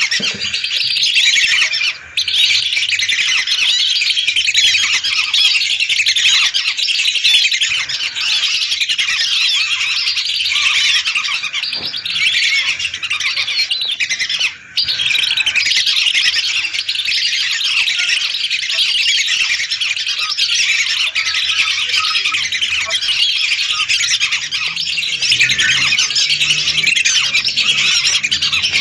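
A large flock of whistling ducks calling all at once: a dense, unbroken chorus of high overlapping whistles and squeaky chatter. It breaks off for a split second twice, about two seconds in and about halfway through.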